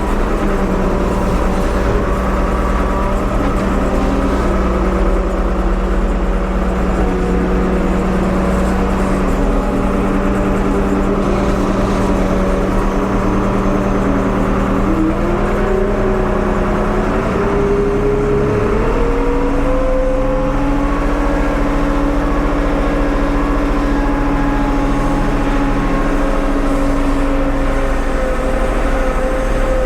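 Engine of a 1975 Ford 550 backhoe running steadily. The engine speed rises about halfway through and holds at the higher speed to the end.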